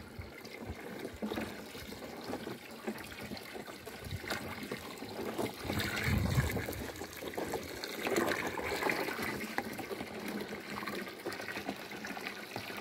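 Water from a hose running into a 200-litre plastic drum of frothy liquid fertilizer, while a PVC pipe stirs the mix, with irregular sloshing swells.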